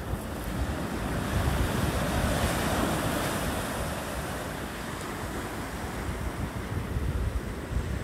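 Atlantic Ocean surf breaking and washing up the beach. The wash swells to its loudest about two seconds in and then eases to a steady hiss. Wind buffets the microphone with a low rumble underneath.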